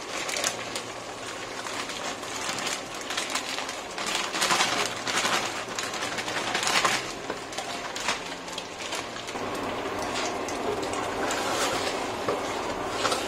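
A bag of frozen spinach rustles and crackles as it is torn open and emptied, and the frozen blocks drop into a steel pot. Then a wooden spoon stirs the pot, turning into a steadier noisy stirring sound with scattered ticks from about nine seconds in.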